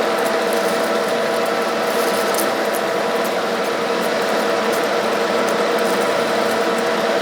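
1K62 metal lathe running steadily while machining D16 aluminium, its gearbox giving an even whine, with faint light ticks over it.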